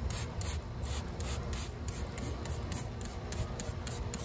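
Handheld trigger sprayer misting liquid wheel cleaner onto an alloy wheel in quick repeated squirts, about three a second, each a short hiss, over a steady low rumble.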